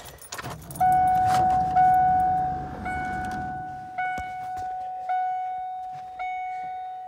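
Keys jingling and clicking in the ignition of a 1997 Ford F-350, then the dashboard warning chime dinging about once a second, six times, each ding fading before the next, as the ignition is switched on.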